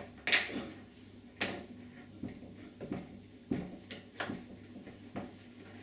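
Heavy-duty flat scraper knocking and scraping against the UPVC door frame and panel as it prises out the plastic glazing packers: a string of short, sharp clicks and knocks, about one a second, the first the loudest.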